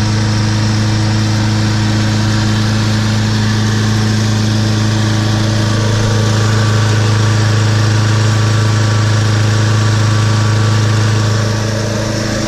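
Snapper walk-behind lawn mower's Briggs & Stratton 7.0 Intech overhead-valve single-cylinder engine running steadily, warmed up. Its note wavers and drops slightly about 11 seconds in.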